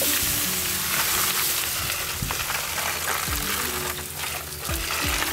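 Hot charcoal in a disposable foil-tray barbecue hissing and sizzling steadily as water is poured onto it from a watering can to put it out.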